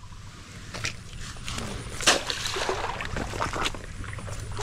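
Shallow water sloshing and splashing as someone moves through it and handles a bag in it, irregular, with a sharper splash about two seconds in.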